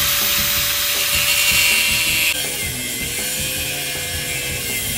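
Angle grinder with a cutting disc running at a steady whine while cutting into a gold-painted dog figurine. The level drops a little about two seconds in and the grinding carries on.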